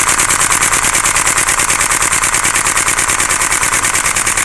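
Airsoft gun firing one long, unbroken full-auto burst: a fast, even string of loud, close shots.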